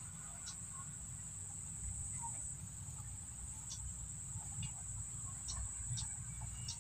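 Insects chirring in one steady, unbroken high-pitched tone, with a low rumble and a few faint clicks underneath.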